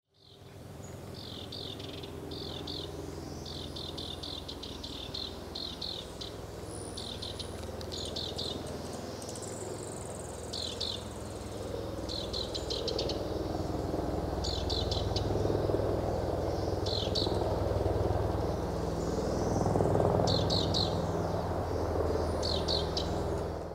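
A wren sings short, rapid trilled phrases again and again, while the low drone of a helicopter underneath grows louder from about halfway through.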